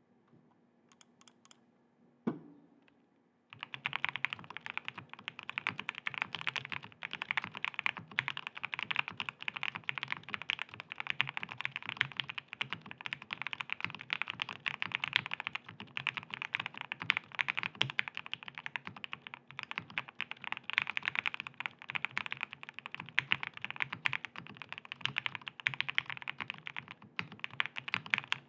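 Fast, continuous typing on a KBDfans Tiger 80 mechanical keyboard with stock Gateron Oil King linear switches, PBT keycaps and a polycarbonate plate. A few soft clicks and a single knock come first, and the steady typing starts about three and a half seconds in.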